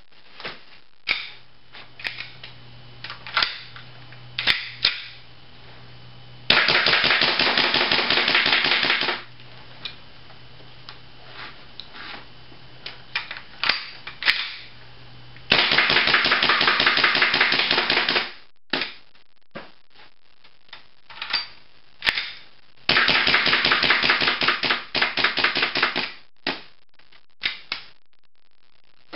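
WE Tech 1911 gas blowback airsoft pistol, run on propane, firing: sharp single shots with the slide cycling, with pauses between them. Three times the shots come in rapid strings of two to three seconds.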